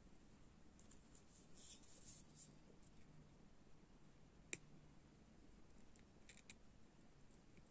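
Faint small metal clicks of jewelry pliers and a metal jump ring being worked: a few scattered ticks, with one sharper click about four and a half seconds in.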